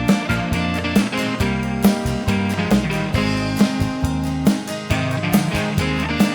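Instrumental break of a country song: guitars and band playing with a steady beat, no vocals.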